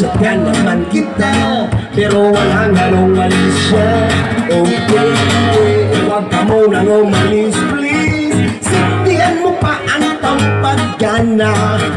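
Live acoustic guitar strummed and picked, with a singer's voice over it, played through a stage PA.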